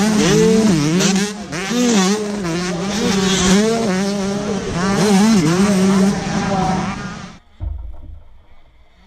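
Several 125cc two-stroke motocross bikes revving hard, engine pitch repeatedly rising and dropping as they are held at full throttle through the jumps. The engine sound cuts off suddenly about seven and a half seconds in, leaving a faint low hum.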